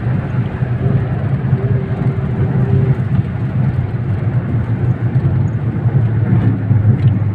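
Car engine and road noise heard inside the cabin at highway speed: a steady low engine drone under tyre and wind noise.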